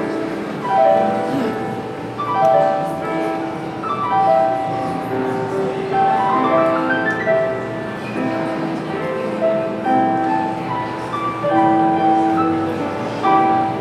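Slow, gentle piano music: sustained ringing notes and chords, with a rising run of notes about halfway through.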